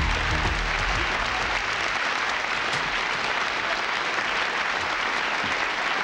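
Studio audience applauding steadily, with music dying away about a second in.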